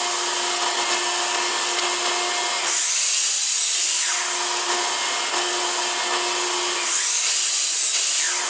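Kobalt sliding compound miter saw running and crosscutting pallet-wood boards to length, one board after another. The motor runs steadily, and the sound turns brighter and hissier with each cut, about every four seconds.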